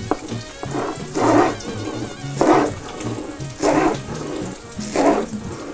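A chef's knife cutting through green onions on a wooden cutting board, four cuts a little over a second apart, over background music.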